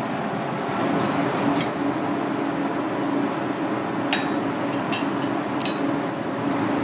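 Steady kitchen background hum, with a few light clinks of a metal spoon against porcelain bowls as an egg yolk is scooped out and moved.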